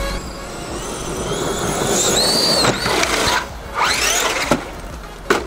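Traxxas X-Maxx RC truck's brushless electric motor whining, its pitch rising and falling as it revs up and eases off, with a sharp knock near the end.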